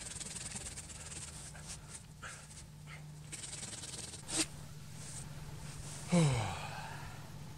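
Scraping and rasping strokes as a man works at dead wood on a snow-covered conifer trunk, with a sharp snap about four seconds in, then a short grunt that falls in pitch about six seconds in.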